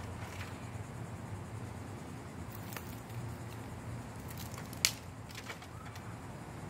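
Dry sticks being handled and broken for firewood: a few light wooden clicks, then one sharp crack of dry wood nearly five seconds in, over a steady faint outdoor background.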